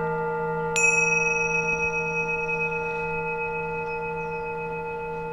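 Singing bowls ringing with several steady, slowly fading tones. Less than a second in, a higher note is struck and rings on over them.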